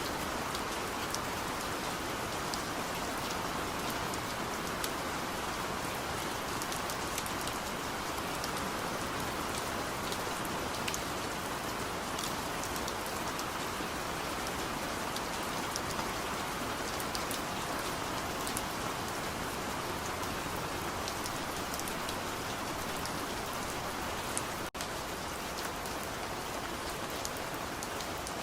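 Steady, even rain with individual drops ticking through it. It briefly cuts out for an instant near the end.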